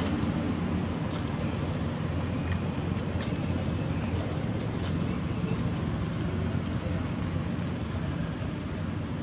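Steady high-pitched insect chorus that swells and fades slightly, over a low wind rumble.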